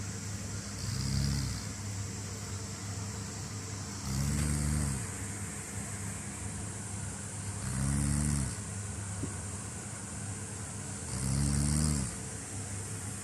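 A sleeping person snoring sharply: four low, buzzing snores of under a second each, about three and a half seconds apart, over a steady background hum.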